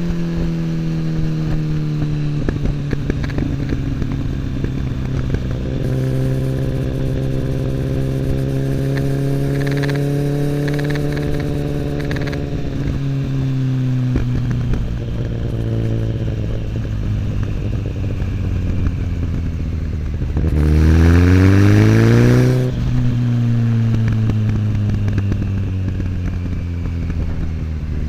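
Kawasaki ZX10R inline-four through an Akrapovic slip-on exhaust, ridden on the road. The engine note eases down, then cruises steadily with small changes in pitch. About 20 seconds in it rises steeply and louder under hard acceleration for about two seconds, then drops sharply and settles back.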